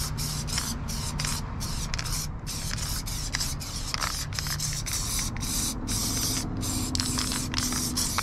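Aerosol spray paint can hissing as the nozzle is pressed and released, long sprays broken by many brief pauses.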